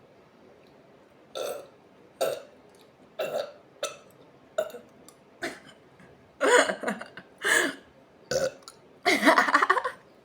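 A woman burping in a quick series of about ten burps, from gas after drinking a carbonated sparkling drink. The first burps are short; from about six seconds in they grow longer and louder, and the last one is the longest.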